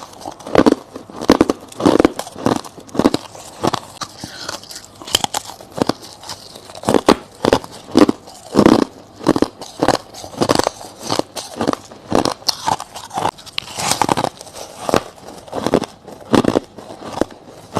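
Close-miked biting and chewing of soft frost and crushed ice: a steady run of crunches, about one or two a second.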